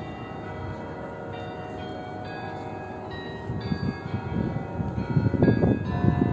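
Kremlin chimes of the Spasskaya Tower clock ringing: bell strokes overlap and ring on, with a new stroke about every second. From about four seconds in, a louder, irregular low rumble rises under the bells.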